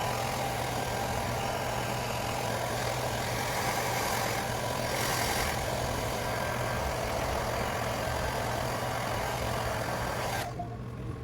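Steady machine noise with a low hum, cutting off shortly before the end.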